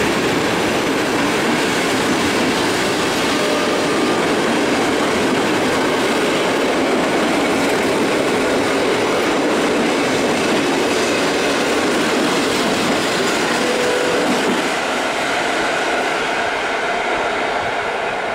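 PKP Intercity passenger coaches of a departing train rolling past, wheels running steadily on the rails with a few brief faint squeals. The noise fades over the last few seconds as the end of the train pulls away.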